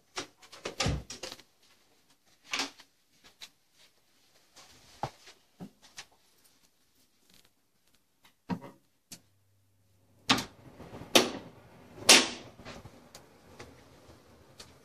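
A hotel room door with a key-card lock being opened and handled: a string of sharp latch clicks and knocks, the loudest near the end. A low steady hum comes on about ten seconds in.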